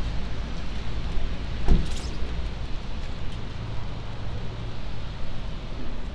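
Wet city street ambience: a steady hiss with a low traffic rumble, and one short knock with a falling tone just under two seconds in.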